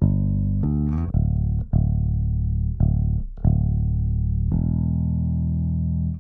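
Bass guitar playing a slow line of long plucked notes, a new note struck about every half second to second, run through the SSL Native X-Comp compressor plugin; the playing cuts off abruptly near the end.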